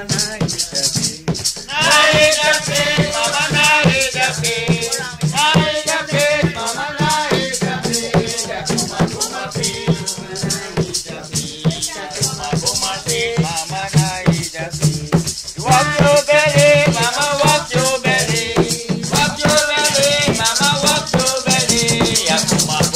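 Singing of an Afro-Guyanese ritual folk song over steady, fast percussion. The singing comes in about two seconds in, breaks off briefly about two-thirds of the way through, then resumes.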